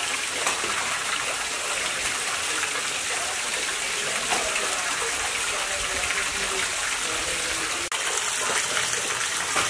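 Water gushing steadily out of a hose-fed bucket and splashing into a concrete hatchery tank.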